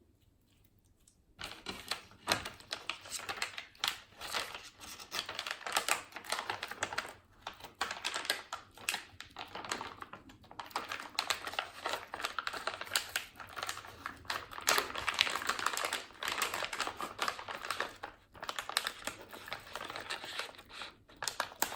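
Hands handling slime and its plastic packaging: a dense, continuous run of clicks and crackles that starts about a second and a half in.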